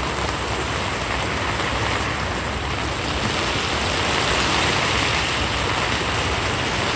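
Steady hiss throughout, with a steel plane iron slid flat on its back across a wet sharpening stone to take the burr off the edge.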